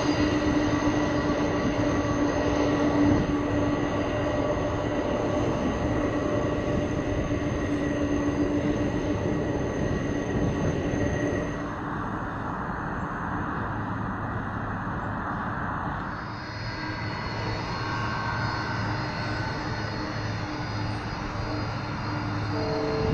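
Boeing 747 Dreamlifter's four turbofan jet engines running on the runway: a steady rush with a held whine. Its tone changes about twelve seconds in and again about sixteen seconds in.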